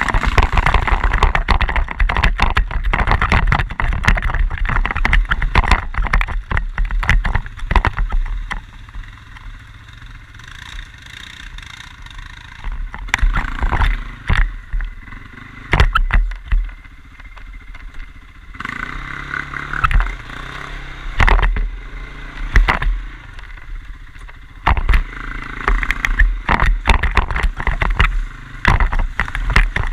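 Quad bike (ATV) engine running during a ride, with many sharp knocks and rattles over it; the level falls back for a few seconds several times and picks up again.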